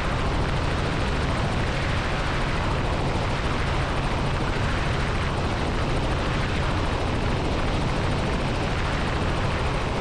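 Robinson R44 helicopter in cruise flight, heard from inside the cockpit: a steady drone of rotor and engine with a low, even throb.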